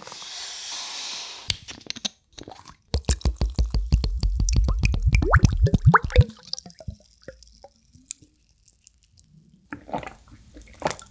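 Yuzu green tea poured from a bottle into a glass mug over ice: about three seconds of splashing, its pitch rising as the glass fills. It is preceded by a brief hiss near the start, and a few sips and swallows come near the end.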